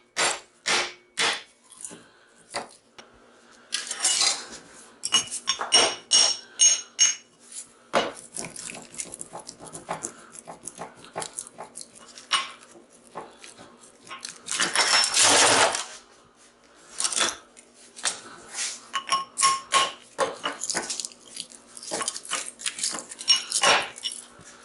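Hammer blows on a transformer's steel laminations, a quick even run of strikes at the start, then irregular clinking and clattering of thin loose steel plates, with some short metallic rings and a longer clattering rush about fifteen seconds in.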